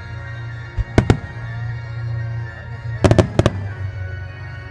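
Starmine firework shells bursting in sharp reports. There are two about a second in, then a quick cluster of four around three seconds in, over steady music accompanying the display.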